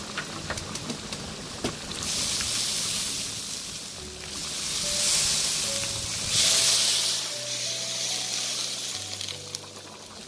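Oil sizzling in a pot of steaming pulao rice: fine crackles at first, then a loud hiss that swells about two seconds in, surges again past the middle and eases near the end. Background music with held notes plays underneath.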